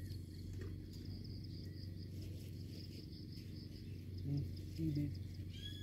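Insects trilling steadily in a high, finely pulsing drone. Two short low sounds come about four and five seconds in, and a brief rising chirp comes near the end.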